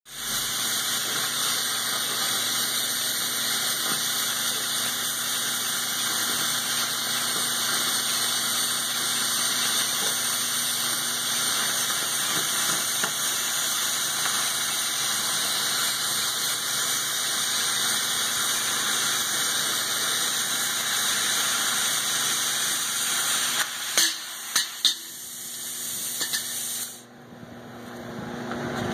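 Oxy-fuel cutting torch hissing steadily as its jet cuts through a steel pipe on a pipe beveling machine. Near the end come a few sharp pops, and then the hiss cuts off as the flame is shut off.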